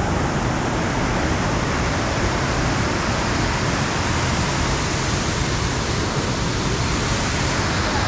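Waterfall with a steady, even rushing noise of falling and cascading water, with no letup.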